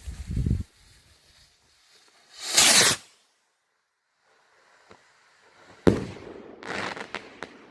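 Sky rocket firework launching with a short whoosh about two and a half seconds in, then bursting with a sharp bang about three seconds later, followed by a spatter of crackling pops. A low rumble is heard at the very start.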